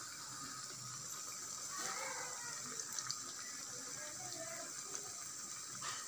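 Mutton keema vadas deep-frying in hot oil: a steady sizzle and bubbling with a few faint pops.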